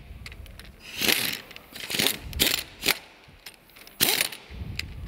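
Impact wrench driving in flywheel bolts in several short hammering bursts, about five in all, the motor winding down in pitch after some of them.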